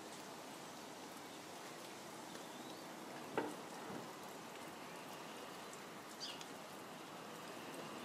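Steady rain pattering, with a single sharp knock about three and a half seconds in and a faint short high chirp a little past six seconds.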